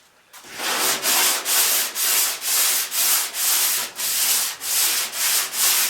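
Hand sanding of cured Bondo body filler on a truck body panel: sandpaper rubbing back and forth in steady, even strokes, about two a second.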